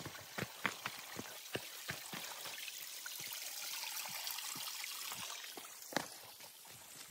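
Spring water pouring from a pipe spout onto rocks in a thin steady stream, the splashing growing louder in the middle, with footsteps on a dirt trail at the start and near the end and a single knock about six seconds in.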